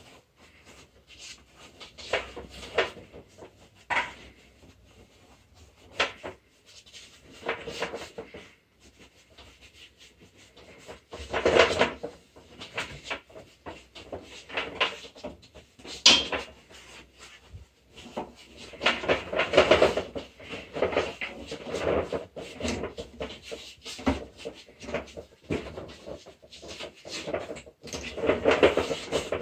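Irregular knocks, scrapes and rustles from handling painting materials and a handheld phone, with a few louder clusters of clatter.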